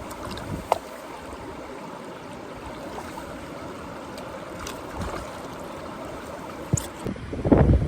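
Steady rush of running water with a few faint clicks, then wind buffeting the microphone just before the end.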